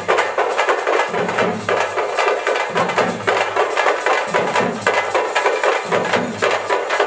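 Festival drums playing fast, dense strokes, with a deeper beat recurring about every second and a half.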